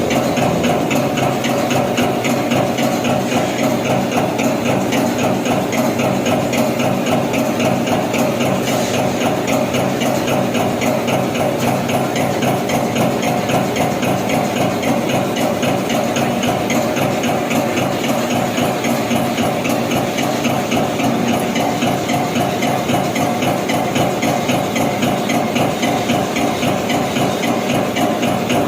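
Yawei Nisshinbo CNC turret punch press running, punching sheet metal in a rapid, steady rhythm of strokes, about four a second, over the hum and hiss of its drive.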